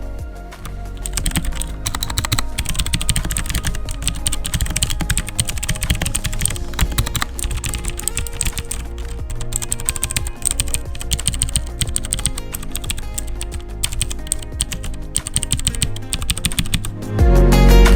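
Typing on a Royal Kludge RK61 60% mechanical keyboard with brown switches: a dense, rapid run of key clicks over background music. The music gets much louder near the end.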